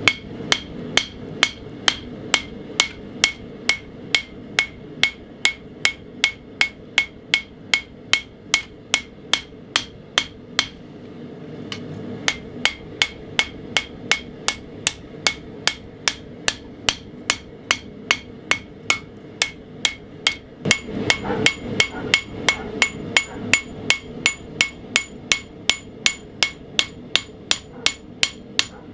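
Hand hammer striking hot 80CrV2 knife steel on an anvil, forging the edge bevel and bowie curve at the tip. The blows are steady, about three a second, each with a short metallic ring, and stop for about a second near the middle. A steady rushing noise runs underneath.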